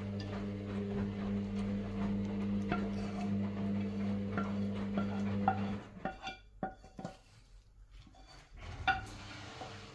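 A wooden spatula scraping and tapping a frying pan as thick chicken-and-vegetable filling is scraped out into a ceramic baking dish. A steady background hum runs beneath it and cuts off about six seconds in.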